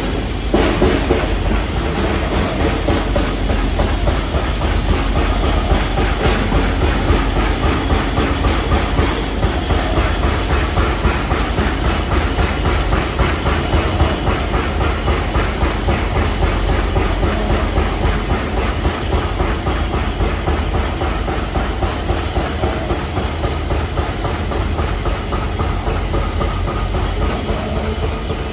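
Construction-site machinery noise: a loud, continuous dense rattling over a heavy low rumble, holding steady with no break.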